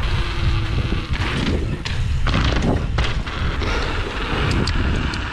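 Mountain bike being ridden fast over rough ground: steady tyre rumble and rattle, with wind buffeting the action camera's microphone, and a few sharp ticks near the end.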